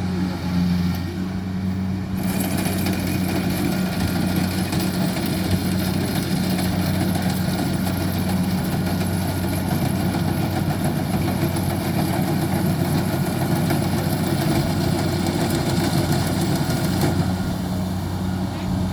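Kubota DC-70 combine harvester running under load while cutting rice: a steady engine drone overlaid with the rushing clatter of the cutting and threshing machinery, which grows louder about two seconds in.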